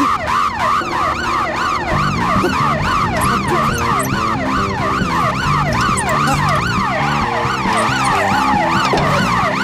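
Fast electronic wailing siren, its pitch sweeping up and down about three to four times a second, with cartoon background music and a bass line joining about two seconds in.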